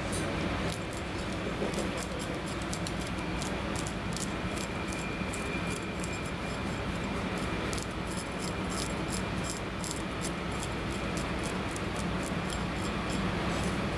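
Kitchen knife scraping the scales off a marbled rockfish on a cutting board: a quick, uneven run of sharp scratchy clicks, over a steady low background hum.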